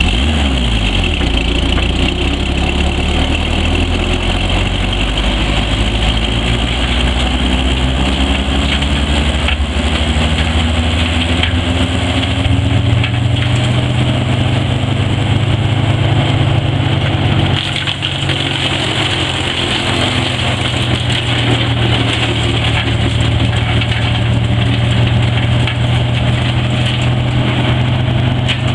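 2004 Altec Hyroller 1200 wood chipper's engine running and revving up: its pitch climbs steadily over the first dozen seconds, then it holds at a steady high speed.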